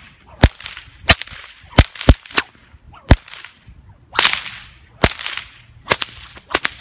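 4.5-foot 550 paracord stock whip being cracked one-handed, about ten sharp cracks at an uneven pace, with swishing of the thong through the air between them.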